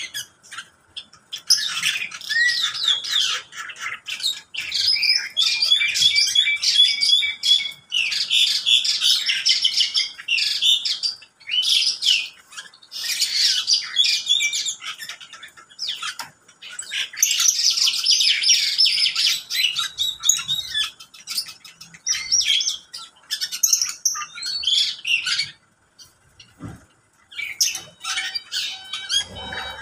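Caged birds in a mixed aviary of lovebirds, Java sparrows, mynas and parakeets chirping and chattering in bouts of rapid, high calls, with a brief lull near the end.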